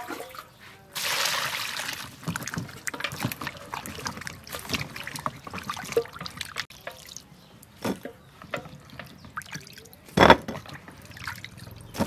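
Water poured into a plastic bowl of vegetables for about a second, then hands sloshing and rubbing the vegetables clean in the water, with small splashes and drips. A single loud knock near the end.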